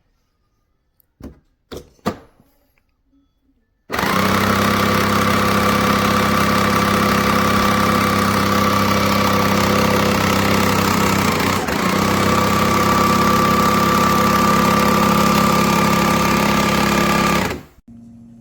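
Breville Barista Touch Impress espresso machine running: after a few light clicks, a loud, steady mechanical buzz with a hum starts abruptly about four seconds in and cuts off sharply near the end.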